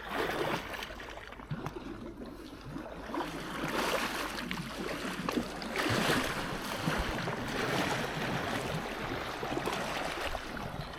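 Water splashing and lapping around an inflatable kayak as it is paddled, in irregular surges every second or two.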